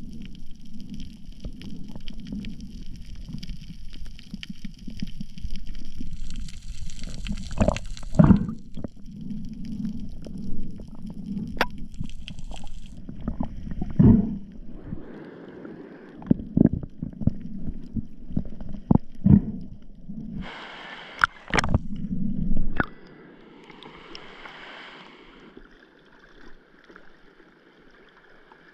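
Underwater sound through an action camera's housing: a muffled low rumble of moving water with scattered sharp clicks and knocks. About two-thirds of the way through it changes to a quieter, steady hiss of water as the camera reaches the surface.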